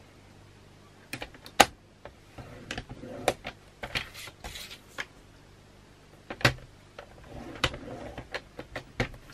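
A paper trimmer handled while scoring cardstock: a series of sharp plastic clicks and knocks as the sheet is set against the rail and the blade carriage is moved, with short scraping slides of paper and carriage between them.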